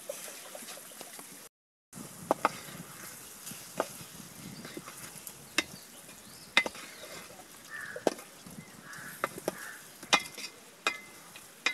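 A spoon stirring thick curry in a metal pot, clicking sharply against the pot's side about ten times at irregular intervals. There is a short dead-silent gap about a second and a half in.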